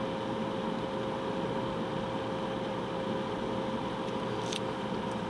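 Steady car-cabin noise: the air-conditioning blower running, with one steady humming tone in it.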